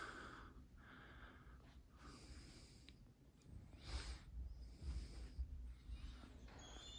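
Quiet room tone with the soft breathing of the person holding the phone close to its microphone. Low bumps of handling noise come from about four to five and a half seconds in.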